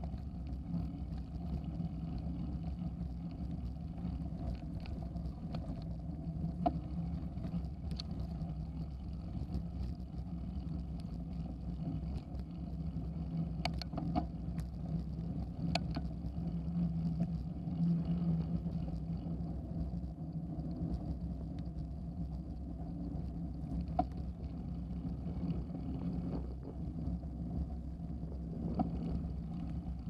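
Bicycle tyres rolling over a gravel trail, heard through a handlebar-mounted camera as a steady low rumble. Sharp clicks and knocks come from bumps several times.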